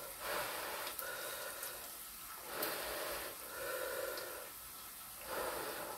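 A man breathing hard in and out about five times through a full mouth as he chews a hot pork-belly lettuce wrap, letting air in to cool the too-hot bite.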